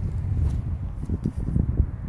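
Wind buffeting the microphone as a steady low rumble, with a few faint taps.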